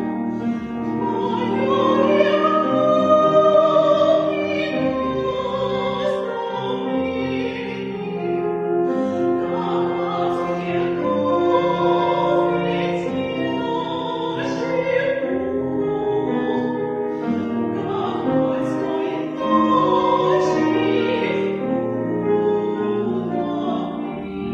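Classical music with an operatic singing voice holding long, wavering notes over instrumental accompaniment.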